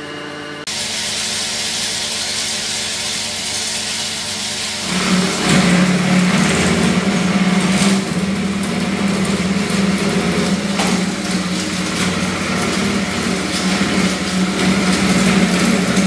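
A homemade disc wood chipper, driven by an electric motor through a ribbed belt, is running. From about five seconds in a wooden branch is fed in and chipped, and the machine grows louder with a steady low hum under the noise of the chipping.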